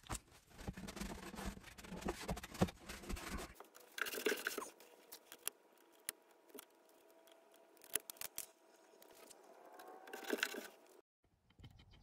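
Two short hisses from a spray bottle of 91% alcohol, one about four seconds in and one near the end. Between them come rustling and sharp clicks from hands handling wiring and the metal panel.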